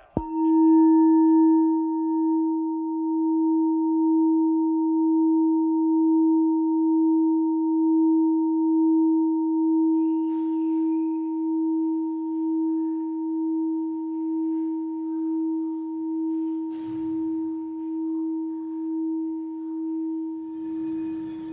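A struck singing bowl rings with one long, slowly fading tone that wobbles gently in loudness. A higher overtone dies away within the first few seconds.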